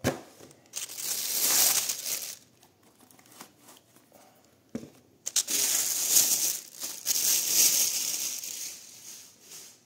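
Clear plastic bag crinkling as sneakers are pulled out of it, in two long stretches of rustling. A light knock comes between them.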